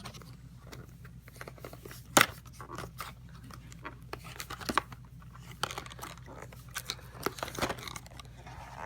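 Scattered clicks, taps and crinkles of a trading card structure deck and its plastic packaging being handled, with one sharper click about two seconds in.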